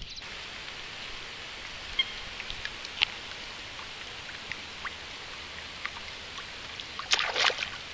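Faint small splashes of a floating topwater lure being worked across pond water over a steady hiss. Near the end comes a burst of loud splashing as a tararira (trahira) strikes the lure.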